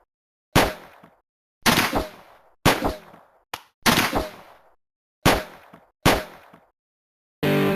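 A string of about seven sharp, ringing bangs, each dying away within a second, with silence between them, followed near the end by a short steady pitched tone.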